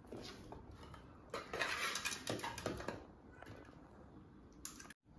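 Spoon scraping and clinking against a cooking pot as cooked rice is scooped out and layered for biryani, busiest for about a second and a half in the middle, with a few lighter clinks around it.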